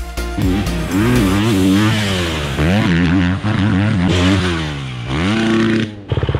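Motocross bike engine revving hard, its pitch repeatedly climbing and dropping as the rider accelerates and shifts, then a loud rapid throbbing just before the end.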